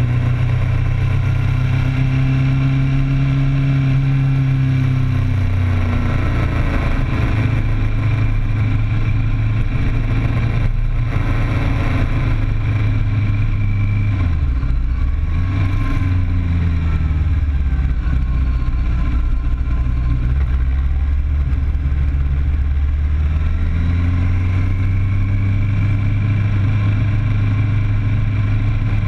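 Inline-four sport-bike engine running under way, heard from the bike itself, its note falling and rising as the rider rolls off and back on the throttle through a string of curves, with a deep dip about halfway through. A steady rush of wind and road noise runs underneath.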